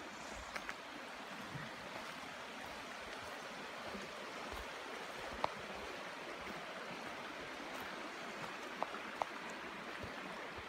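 Shallow mountain creek running over a rocky bed: a steady rush of flowing water, with a few faint clicks.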